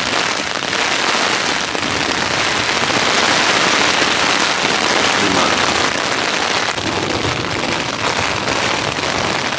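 Heavy rain pouring down on a cheap Decathlon tent, heard from inside the tent as a loud, steady rush of rain on the fabric.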